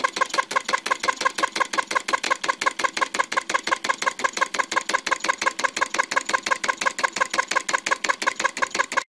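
Small single-cylinder flame-eater (vacuum) model engine with a finned brass cylinder, running steadily as it draws in its burner flame. It makes a fast, even clicking beat of roughly seven to eight pulses a second.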